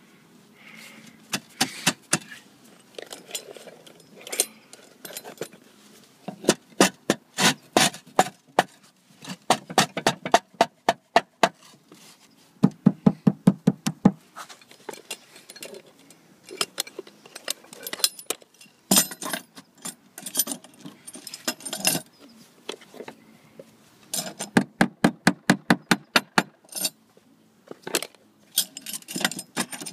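Sharp clinks and knocks of hard objects, often in quick runs of several taps a second: concrete roof tiles and a metal tool being knocked and scraped as a tile is lifted and a steel roof-hook bracket is fitted beneath it.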